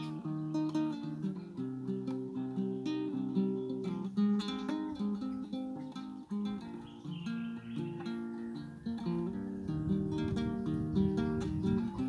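Solo classical nylon-string guitar improvising: picked melodic notes over bass notes, growing into thicker, fuller chords from about nine seconds in.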